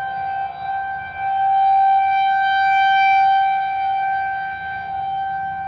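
Federal Signal 2001-SRN outdoor warning siren sounding one steady tone, growing louder about a second in and easing back a few seconds later.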